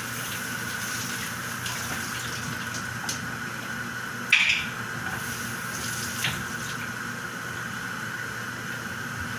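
Covered pot of chicken afritada simmering: a steady hiss under a constant high hum, with a few sharp clinks, the loudest about four and a half seconds in.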